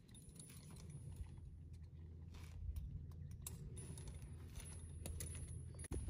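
Light clicking and small metal jingles of saddle tack being handled while a western saddle is cinched up, over a low steady rumble.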